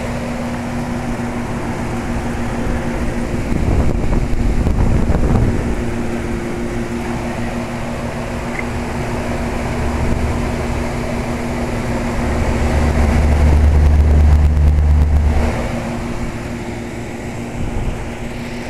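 York Champion IV central air-conditioner condensing unit (circa 1975) running normally: a steady compressor hum over the rush of the condenser fan. A deeper low rumble swells twice, once about four seconds in and again for a few seconds past the midpoint.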